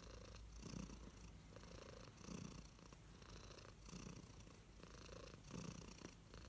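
Domestic cat purring contentedly as it is stroked, a faint steady purr that swells and eases with each breath in and out.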